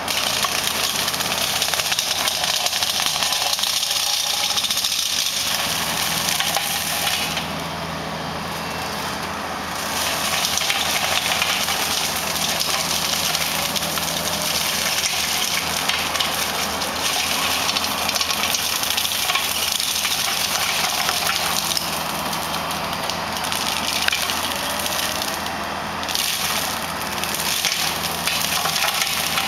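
Compact excavator's hydraulic mower head shredding brush and weeds, a dense steady chopping noise over the diesel engine's steady hum. The cutting noise eases off briefly about a third of the way in and again near the end.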